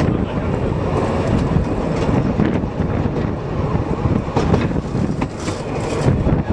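Narrow-gauge passenger train running along the track: a steady rumble of wheels and carriages with scattered clacks from the rails.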